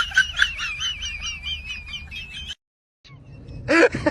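Bird chirping in a rapid run of high, wavering chirps, about five a second, that cuts off suddenly about two and a half seconds in. A short voice-like call follows near the end.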